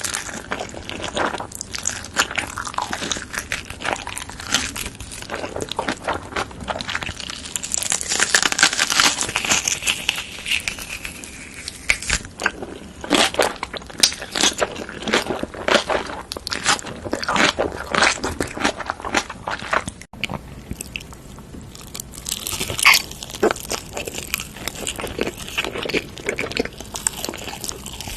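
Crunchy food being bitten and chewed: a dense run of sharp crunches with softer chewing between them, and a brief break about twenty seconds in.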